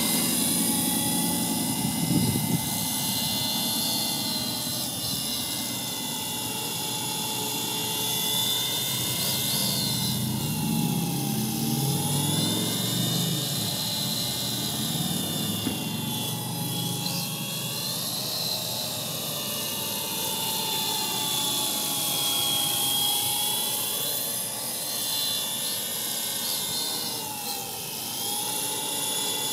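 MJX F49 RC helicopter's brushless motor and rotor whining steadily in flight, the pitch rising and falling every few seconds as the motor speeds up and slows. Gusts of wind rumble on the microphone at times.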